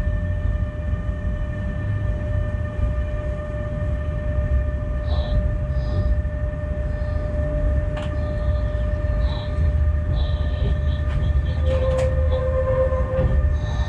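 Locomotive running slowly, heard from inside the cab: a steady low rumble with a constant hum of several fixed tones. There are a few sharp clicks from the wheels, two of them standing out about eight and twelve seconds in.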